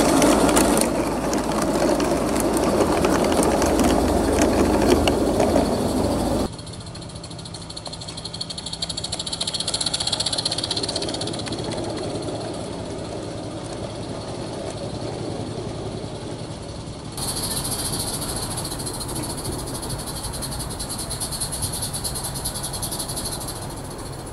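Large-scale garden railway train running on outdoor track. The coach wheels rumble and clatter loudly over the rail joints as they pass close by, then the sound drops abruptly about six seconds in to the fainter running of the train, which is hauled by a live steam locomotive.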